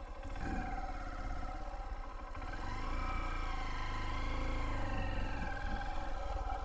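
Motorcycle engine running as the bike rolls off slowly. The revs rise about half a second in, then climb and fall again from a few seconds in as it picks up speed.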